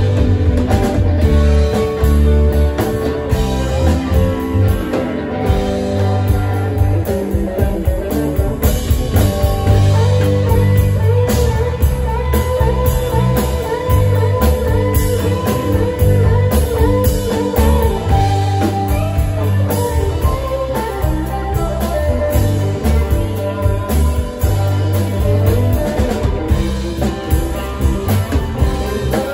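Live rock band playing: electric guitar, bass guitar, drum kit and keyboards in a steady jam, with no pause.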